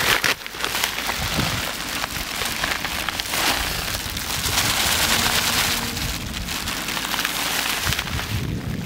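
Fishing groundbait being mixed by hand: a continuous rustling, crackling noise that swells and eases.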